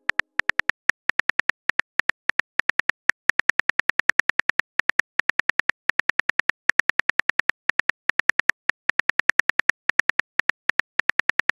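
Phone keyboard typing clicks from a texting app: rapid, uneven key taps, several a second, with brief pauses between runs, as a message is typed out.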